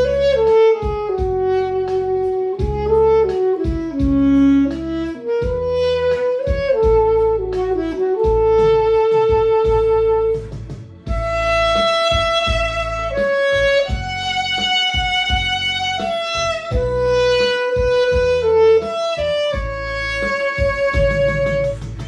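Saxophone playing a slow song melody in held and stepping notes over an accompaniment backing track with a steady beat. The melody breaks off briefly about halfway through, then comes back brighter and higher.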